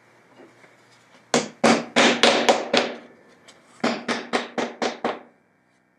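Claw hammer tapping steel T-nuts home into recessed holes in the wooden jig board: two quick runs of about half a dozen blows each, with a short pause between.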